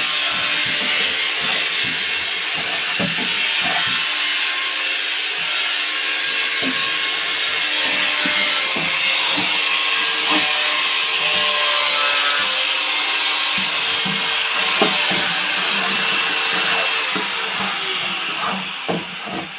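Electric hand planer running steadily on the wooden cabinet frame: an even, hissing motor whine with small knocks as it is worked along the timber.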